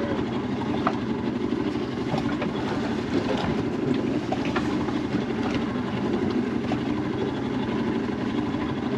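Boat engine idling steadily, with a few light ticks over it.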